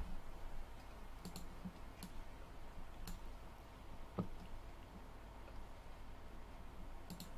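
Faint, scattered clicks of a computer mouse, about half a dozen at irregular intervals, over low room noise.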